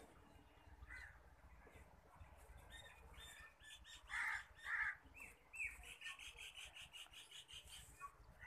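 A crow cawing twice, loud and harsh, about four seconds in. A quick run of high chirps, about six a second, follows.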